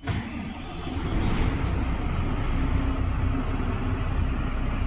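Volvo truck's diesel engine starting, building over about a second into a steady low idle, heard from inside the cab.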